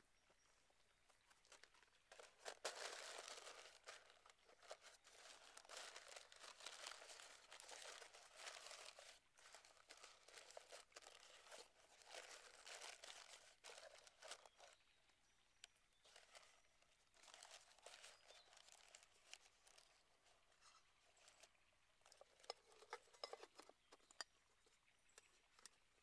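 Paper crinkling and rustling in long stretches as a sheet is pressed and folded into a cooking pot, with a few sharp clicks near the end.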